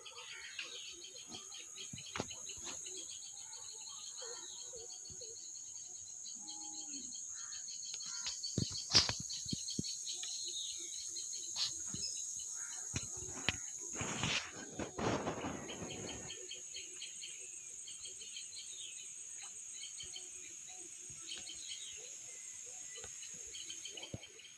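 A steady, high-pitched chorus of crickets or similar insects, with scattered bird chirps over it. A single sharp knock sounds about a third of the way in, and a brief burst of noise comes about two-thirds through.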